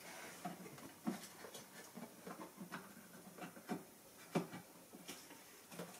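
Irregular light clicks and taps, one or two a second, of hands handling small hard parts and tools.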